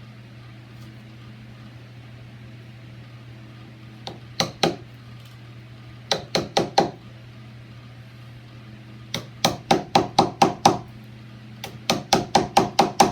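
Hammer tapping a wood chisel into the edge of a fiberboard door to cut out a latch mortise, in four bursts of quick, light strikes; the later bursts are longer, with about eight strikes each. A steady low hum runs underneath.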